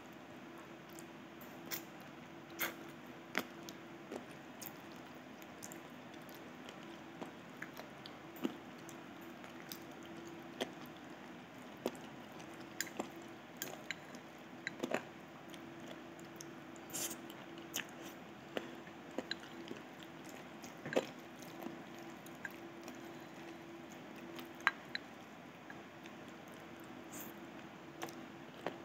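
Close-up chewing and soft, wet mouth sounds of someone eating rice with braised chicken, with frequent short sharp clicks scattered throughout as wooden chopsticks meet the ceramic bowl and the lips. A steady low hum sits underneath.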